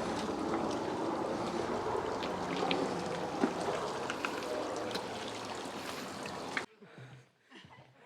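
Mountain stream water rushing and babbling over rocks, a steady wash of sound. It cuts off abruptly near the end, leaving quieter sounds with a voice.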